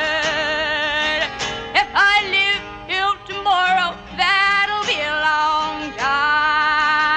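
Female folk singer's voice, wordless. A long held note with a fast, wide vibrato gives way about a second in to a run of short sliding, wavering cries with brief breaks between them. It settles on another long vibrato note about six seconds in.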